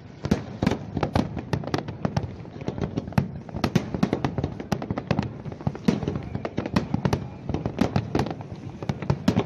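Fireworks display: aerial shells bursting in a rapid, continuous barrage, several sharp bangs a second.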